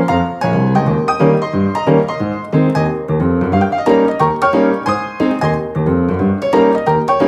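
Background piano music playing a quick, busy run of notes.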